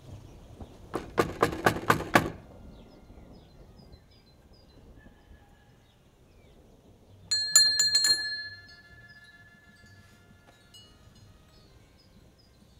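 About seven quick knocks on a wooden door, then a small metal door bell rung by hand about five times in quick succession, its clear tone ringing on for a second or two after the last strike.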